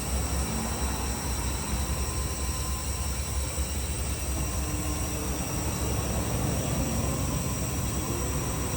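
Steady low rumble with a hiss over it, unchanging throughout, with no distinct knocks or events.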